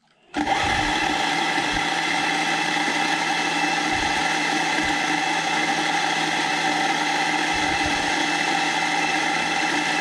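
Ceado E6P flat-burr coffee grinder grinding espresso beans straight into a portafilter, a steady motor whine with the grinding noise of the burrs. It starts about half a second in.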